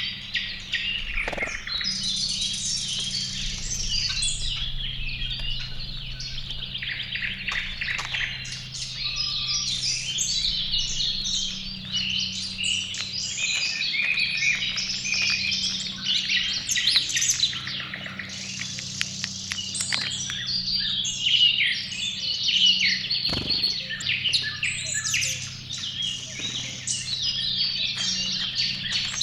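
Many small songbirds chirping and singing at once, a dense, continuous chorus of overlapping short calls and trills, over a steady low hum.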